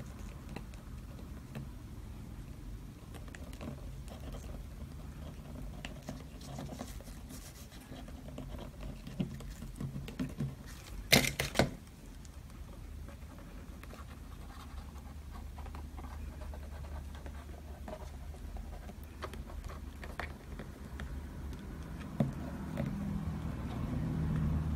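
Small scrapes and taps of alcohol-ink painting on paper over a steady low room hum, with a few sharper clicks about eleven seconds in.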